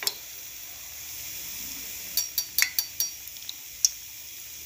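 Hot cooking oil sizzling in a metal frying pan, with a quick run of sharp metal clinks about two to four seconds in as the wire skimmer holding the fried tikkis and a slotted spoon knock against the pan.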